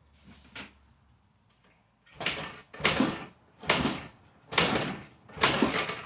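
Honda XR100R's single-cylinder engine being kicked over five times in quick succession, each kickstarter stroke a short noisy burst with no firing. The engine is cranking on a compression test that reads only about 5 psi, far too low for it to start.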